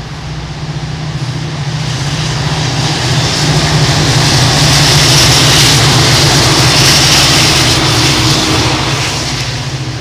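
Two Norfolk Southern diesel-electric locomotives running as rear distributed power units at the end of an intermodal train, passing by. Their low diesel drone and the wheel and rail noise grow to their loudest about halfway through, then begin to fade.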